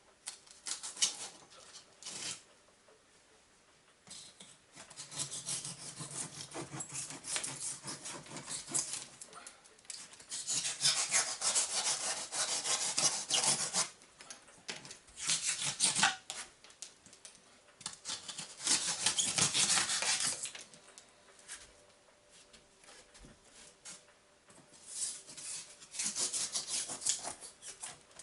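A blade sawing off cured polyurethane expanding foam, in rapid rasping strokes that come in several bouts separated by short pauses.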